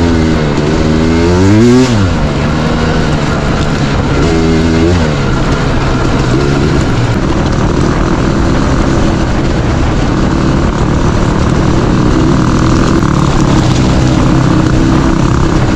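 Dirt bike engine revving up and down through the throttle, with a sharp rev and drop just before 2 s, then settling into a steady, even run.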